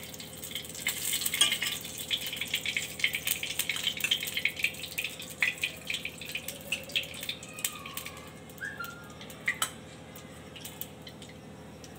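Oil crackling and sizzling as it is spooned, a little at a time, into the cavities of a hot appe pan, with light clicks of the spoon on the pan. The crackle is dense at first and thins out about eight seconds in.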